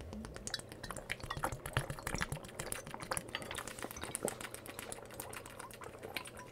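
A man gulping water straight from a glass bottle, a quick steady run of swallows and glugs as he drains it.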